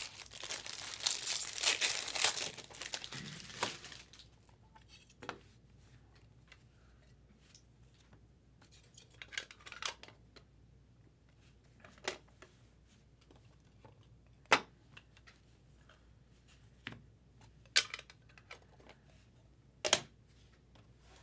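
A foil trading-card pack wrapper being torn open and crinkled for about four seconds, then a handful of short, scattered clicks as the cards are handled and set down.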